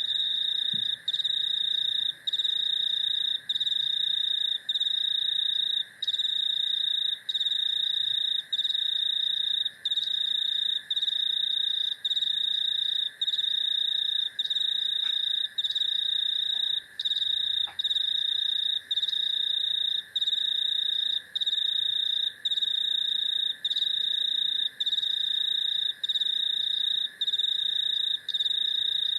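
Cicadas and crickets calling: a high, steady buzz broken by a short gap about every second and a quarter, over a lower, continuous drone.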